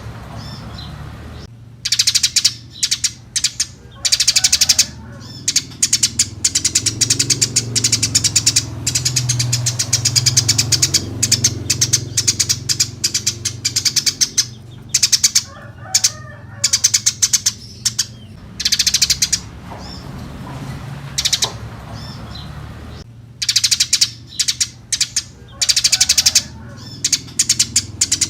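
Eurasian tree sparrows chirping in quick runs of sharp, high chirps, with short pauses between the runs, over a steady low hum.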